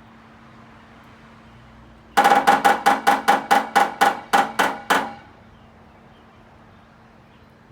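A woodpecker hammering with its bill: about a dozen quick, sharp knocks at four to five a second, starting about two seconds in and stopping after about three seconds, each ringing at one clear pitch as if on hollow wood.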